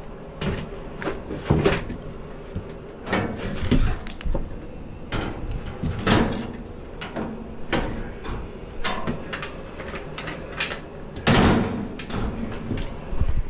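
A run of irregular knocks, clunks and rattles from equipment being handled, with a few louder bangs spaced a few seconds apart.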